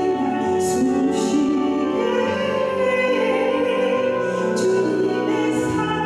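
A woman singing a Korean worship song into a microphone over instrumental accompaniment, holding long, wavering notes broken by sharp 's'-like consonants.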